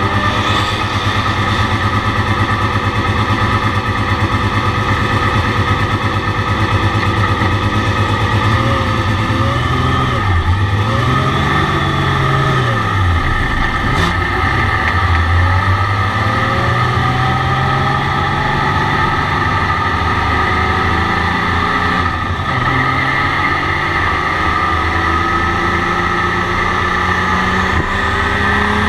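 A Porsche 935's turbocharged flat-six engine heard from inside the cockpit, pulling away at low speed with a lumpy, pulsing beat. Its pitch rises and falls several times as the throttle is fed in, with one sharp tick about halfway through.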